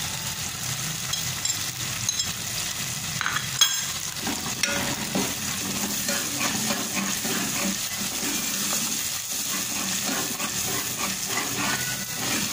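Oily spice masala sizzling and frying in an aluminium pot while a steel ladle stirs and scrapes through it, as whole spices and garam masala go in. One sharp knock, the loudest sound, comes about three and a half seconds in.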